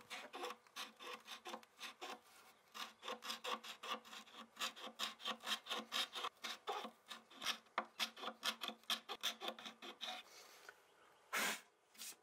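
A small hand scraper scrapes old lacquer finish off bare wood in an inside corner, in short quick strokes about three a second. The strokes stop about ten seconds in, and a single louder rub comes near the end.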